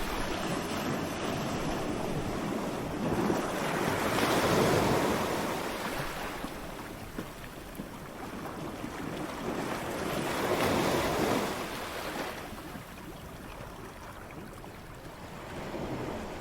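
Ocean waves breaking on a shore. The surf swells into louder crashes about four seconds in and again about ten seconds in, with a steady wash of surf between them.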